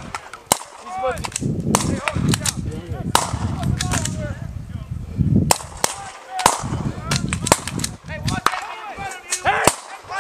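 Rifle fire from several Marines shooting in a live-fire drill: a dozen or so single sharp shots at irregular intervals, some overlapping.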